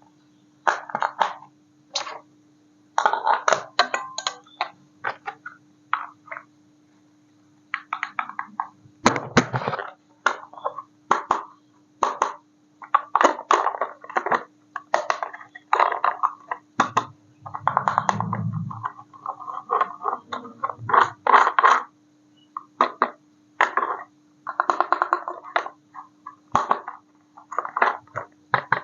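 Plastic packaging and toy parts being handled and unwrapped in short crackling, clattering bursts, over a steady low electrical hum.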